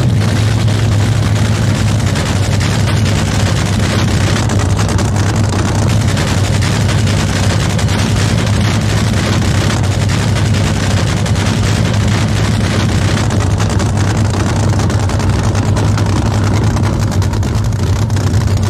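Drag boat engine running steadily with a loud, even, low drone that holds the same pitch throughout.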